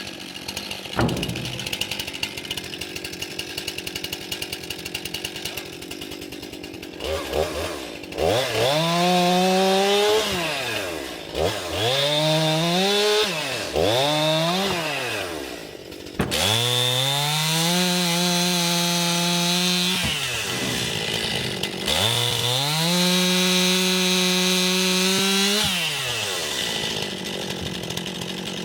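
STIHL MS 261 two-stroke chainsaw, running low for several seconds and then throttled up again and again. Three short revs are followed by two longer stretches held at full throttle, cutting slab wood.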